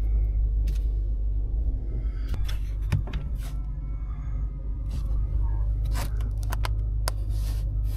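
Steady low rumble of an idling vehicle engine, with a scatter of sharp clicks and knocks from about two seconds in and a short hiss near the end.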